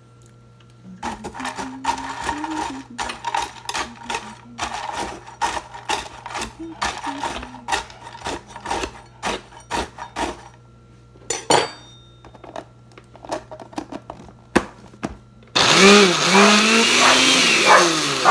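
Dry Hot Cheetos clattering and crunching as they are stirred with a utensil in a glass blender jar, in scattered irregular clicks. About fifteen seconds in, the smoothie blender starts and runs loudly crushing the chips, with a dog's wavering whine rising and falling over it.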